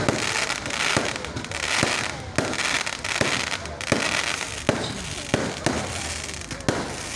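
Fireworks going off: a run of sharp bangs at irregular intervals, about one or two a second, over a continuous crackling haze.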